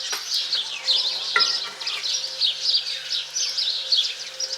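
Many small birds chirping continuously in quick, overlapping down-sweeping calls, with a single light knock about a second and a half in.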